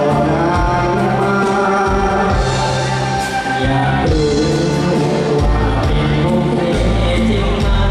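Male singers singing into microphones over an amplified band with sustained bass notes, through a stage PA system.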